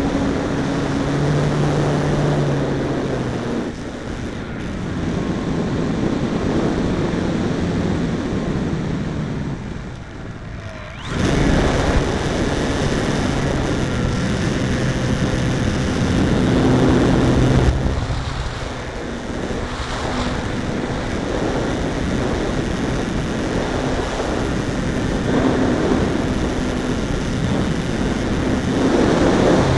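Brushless electric outrunner motor and propeller of an RC aerobatic plane, heard from on board with air rushing past, its pitch and loudness rising and falling with the throttle. The power drops away about ten seconds in, then comes back sharply about a second later.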